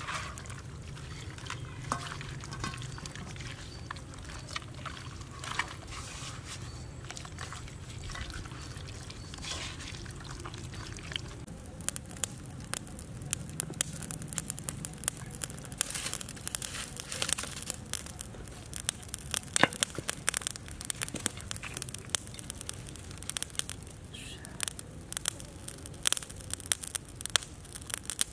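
Wet squelching of hands rubbing a chopped marinade into a whole raw chicken in a pan. From about twelve seconds in, it gives way to a dense run of sharp crackles and clicks as green bamboo sticks are tied into a grill over a small wood fire.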